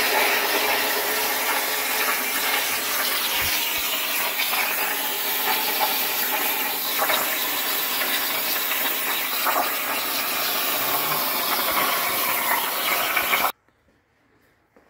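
Plasma torch of a CNC plasma table cutting sheet steel: a steady, loud hiss that stops abruptly near the end.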